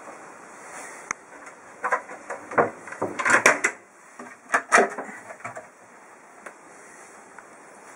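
Wooden cupboard door and hinged cabinet flap being opened and handled: a run of knocks and latch clicks, loudest a little after three seconds and again just before five seconds.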